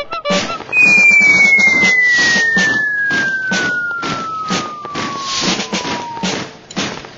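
A single whistle-like tone glides steadily down in pitch for about five and a half seconds, starting just under a second in. Under it runs a rhythmic beat of about two hits a second.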